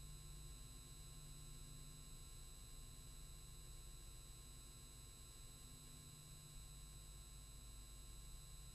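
Near silence: a faint steady hum and hiss from the recording's noise floor, with a few constant thin tones and no other sound.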